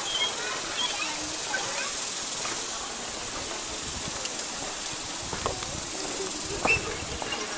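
Footsteps knocking on the wooden planks of a suspension bridge, a few sharp knocks about a second apart in the second half, the loudest near the end, over a steady high hiss with scattered faint chirps and voices.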